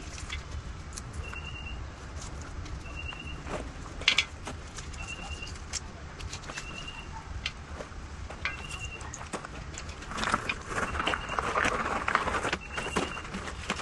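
A bird repeats a short high call every second or two. Under it are scattered clicks and knocks from hands working on an electric bike, with a louder stretch of rustling and clatter about ten seconds in.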